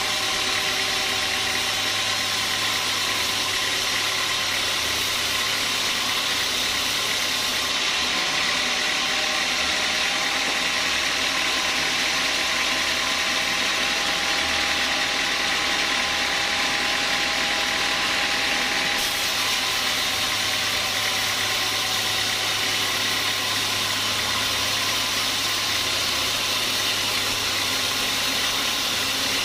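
Horizontal band sawmill running steadily, its blade sawing through a hard small-leaf acacia log: a continuous machine hum with a hissing saw noise over it. The tone shifts slightly about eight seconds in and again about nineteen seconds in.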